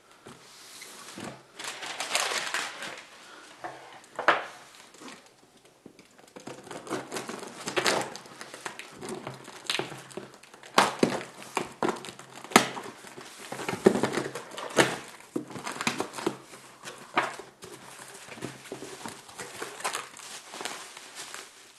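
Cardboard box being unpacked by hand: packing tape cut and torn off, cardboard flaps pulled open, and packing material crinkling, in irregular rustles, tears and a few sharp snaps.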